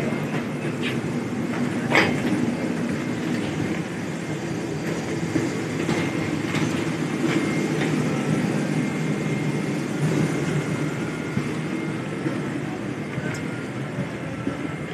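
Steady low rumble of an airliner's ventilation and machinery during boarding, with scattered clicks and knocks and one sharp knock about two seconds in.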